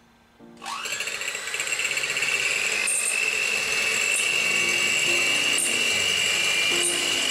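Electric hand mixer switched on about half a second in, its motor whining up in pitch to speed and then running steadily as its twin beaters whisk egg whites in a glass bowl. A few faint ticks sound over the motor.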